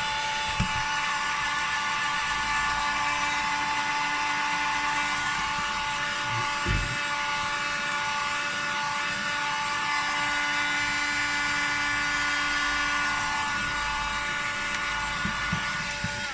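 Hot-air gun running steadily, a motor whine over a rush of air, heating the adhesive pads under a laptop screen to soften them. It cuts off at the very end.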